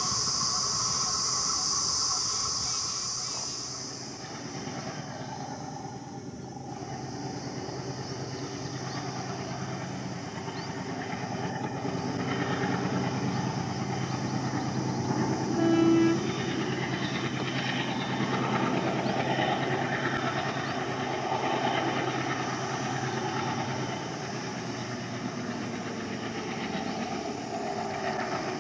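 Diesel locomotive running in the distance, its low engine hum and rumble slowly growing louder, with one short horn blast a little past halfway. A high steady buzz at the start stops about four seconds in.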